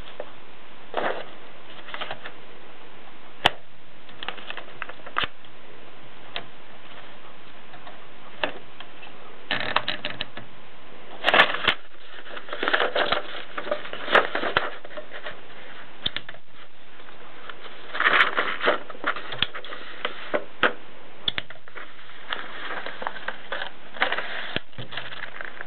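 Voss Special typewriter mechanism clicking and clacking in irregular runs, with dense bursts of strikes and single sharp clicks between, over a steady hiss.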